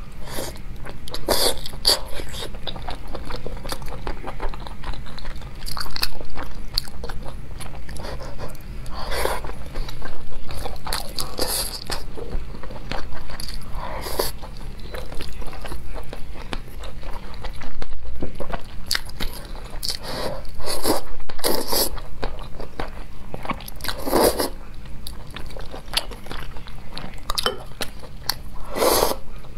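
Close-miked eating sounds of a person biting into and chewing braised pork belly: a steady run of short mouth clicks, with louder bites every few seconds.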